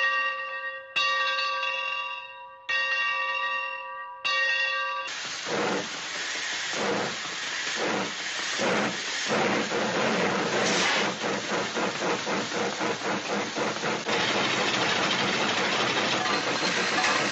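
Steam-train sound effect: a bell rings, struck again three times and dying away between strokes. About five seconds in it gives way to rhythmic chugging puffs that speed up and blend into a steady rushing hiss.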